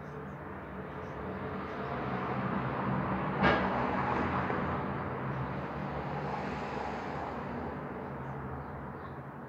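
A rushing noise swells over a few seconds and fades again, like a vehicle passing, over a steady low hum. A sharp knock sounds about three and a half seconds in.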